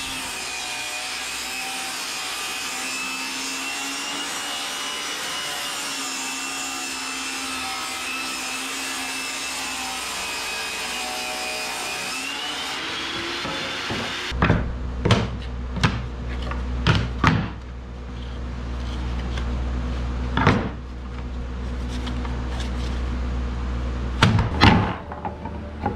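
Table saw running and ripping a board, its blade whine sagging slightly in pitch under load and rising again as the cut finishes. About halfway through this gives way to a steady low hum with a series of sharp wooden knocks and clacks as boards are handled.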